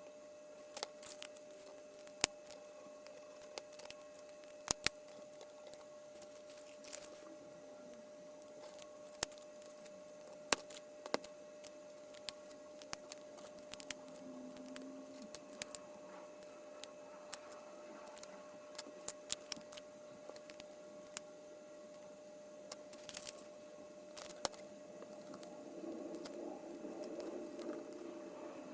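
Small plastic LEGO pieces being handled and snapped together, an irregular string of sharp little clicks over a faint steady hum.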